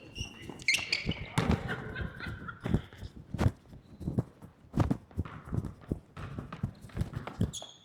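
A basketball thumping on a gym court during play, with irregular bounces and thuds about every half second to second. Short high squeaks come in the first two seconds.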